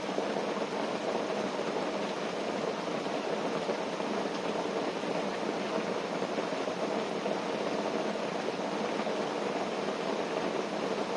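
Steady rain pattering on a tent, an even hiss with no distinct drops or pops standing out.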